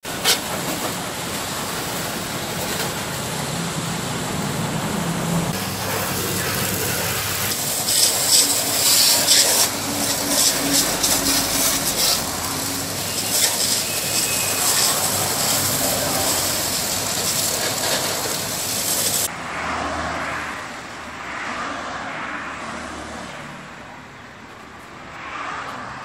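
High-pressure car-wash water jet hissing against a car's bodywork, with louder spattering stretches as the spray moves. It cuts off suddenly about two-thirds of the way through, leaving a quieter, duller noise.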